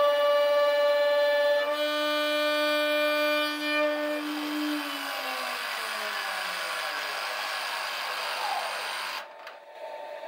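CNC router spindle with a keyhole router bit milling a keyhole slot in wood, giving a steady high whine. About five seconds in, the whine falls steadily in pitch as the spindle winds down after the cut.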